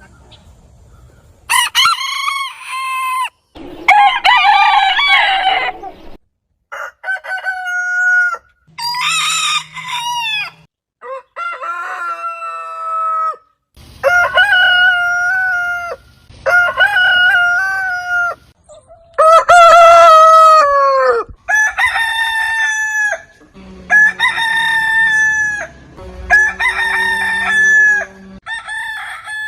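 Roosters crowing: about a dozen separate crows from different birds, each a second or two long, cut one after another.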